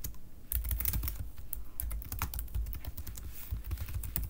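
Typing on a computer keyboard: a run of quick, uneven keystrokes.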